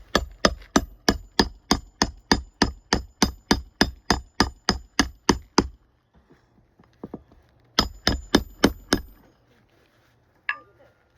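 Hammer nailing down a replacement 3-tab asphalt shingle on a roof: a fast, even run of ringing blows, about four a second for several seconds, then a pause with a couple of light taps, a second short run of about six blows, and a single last knock near the end.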